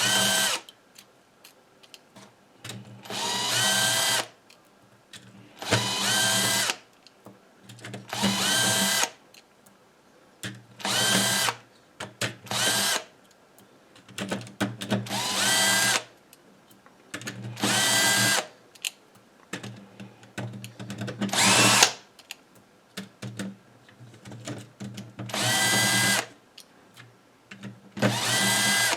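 Power drill-driver backing screws out of a contactor housing in about ten short bursts, its motor whine rising in pitch as each burst spins up, with small clicks between the bursts.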